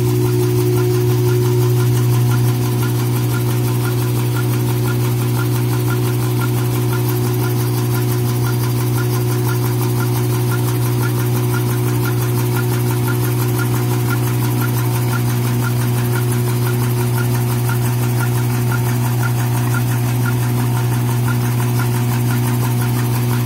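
Automatic five-line N-fold hand towel paper machine running at production speed: a steady low hum with a quick, regular clicking from the folding and cutting cycle.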